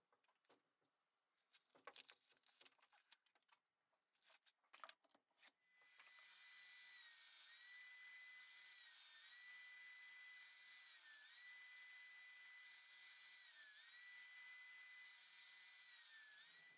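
Scratchy rubbing and scraping strokes, then about six seconds in a small high-speed power tool starts and runs steadily with a hissing whine that dips briefly in pitch every couple of seconds as it is pressed into the work, stopping just before the end.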